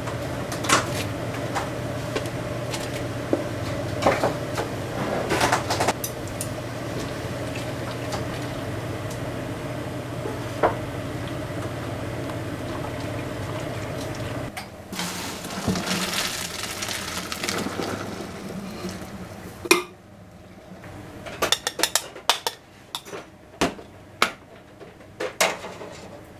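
Pots, dishes and utensils clinking and knocking during cooking. For the first half this runs over a steady hum that stops abruptly about halfway. After that the clinks come sharper and sparser over a quieter background.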